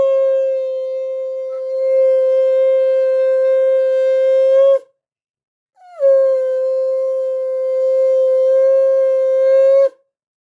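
Conch shell (shankha) blown in two long, steady blasts of about five and four seconds with a short silence between. The second blast slides down into its note as it starts, and each breaks off with a brief drop in pitch.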